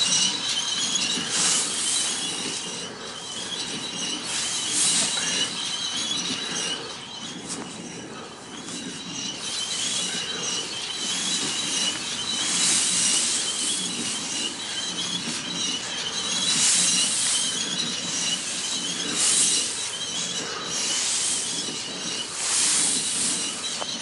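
John Deere 3020 tractor running as it drives across the hayfield, with a steady high-pitched squeal over the engine and hiss that swells and fades every second or two.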